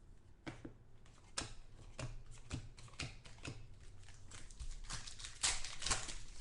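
Football trading cards being handled and flipped through by hand: an irregular run of small clicks and taps, thickening into a louder rustle of cards about five and a half seconds in.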